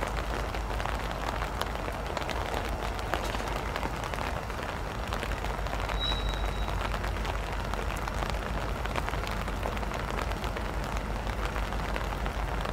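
Steady rain falling, a dense fine patter of drops, with a steady low rumble beneath it from the diesel locomotive approaching on the curve.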